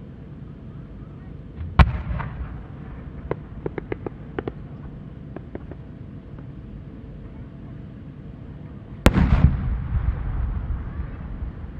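A single Japanese aerial firework shell: a sharp launch report about two seconds in, a string of small pops as it climbs on its rising tail, then a loud boom as it bursts about nine seconds in, rolling away in a long echo.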